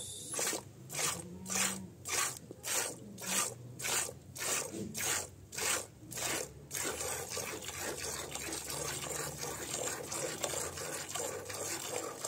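Goat being hand-milked into a metal bowl: squirts of milk hitting the bowl in a rhythmic hiss, about two squirts a second, turning about seven seconds in to a steadier, continuous hiss.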